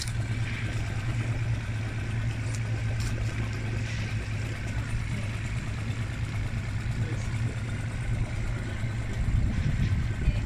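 A steady low mechanical hum with a faint, wavering higher whine above it.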